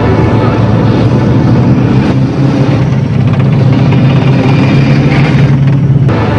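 Loud, steady engine noise of military vehicles.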